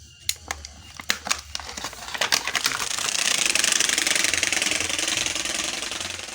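Pedal bicycle wheel spinning with a piece tied to the frame flicking against the spokes. A few separate clicks at first speed up into a fast buzzing rattle meant to sound like a motorbike, which eases off near the end.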